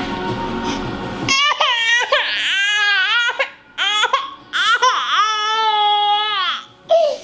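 A baby crying in loud, high-pitched wails that begin about a second in, several short ones and then one held for about two seconds.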